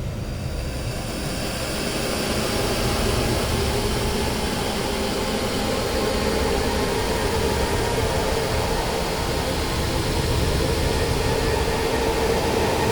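A dense, steady wall of noise from an experimental music recording. It swells over the first two seconds as the high end fills in, then holds level.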